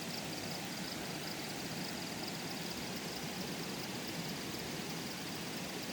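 Steady rushing noise of running water, with a faint high chirping repeating evenly over it.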